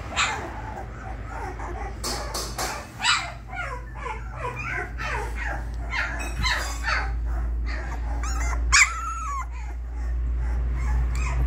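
A 20-day-old Labrador puppy whining and yelping in short, repeated high-pitched cries, with one louder yelp about nine seconds in. A steady low hum runs underneath.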